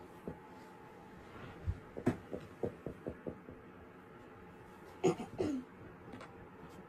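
Small plastic toy food and erasers being handled: a quick run of light clicks and taps about two seconds in, then two louder knocks around five seconds in, over a faint steady hum.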